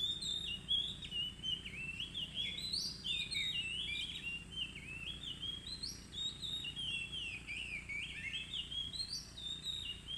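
Oriental magpie-robin singing a long, unbroken run of varied whistled phrases, quick notes sliding up and down. It is in full, excited song.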